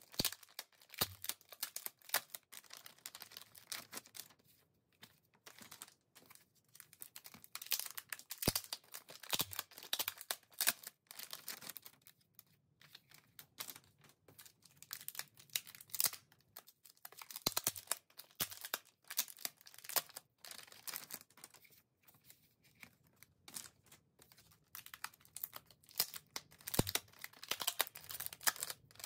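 A crinkly plastic snack-bag-style album pouch being handled and torn open: bursts of rustling, crinkling and tearing with small clicks, broken by short pauses and a few light knocks.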